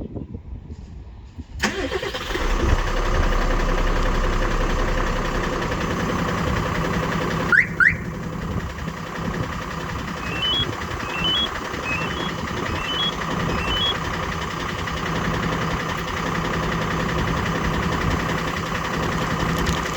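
Tata Daewoo Prima truck's diesel engine started by remote start: it cranks and catches about a second and a half in, then idles steadily. About six seconds later two short loud rising chirps sound, followed by a series of faint short rising beeps.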